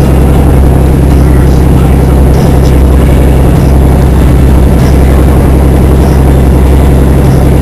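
A pleasure boat's engine running steadily at cruising speed, heard loud and close on board as a deep, unbroken drone.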